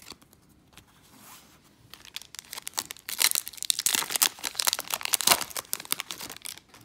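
A foil Yu-Gi-Oh! booster pack wrapper being torn open and crinkled by hand. There is a dense crackling tear from about two seconds in, loudest in the middle, after a quieter stretch of card handling.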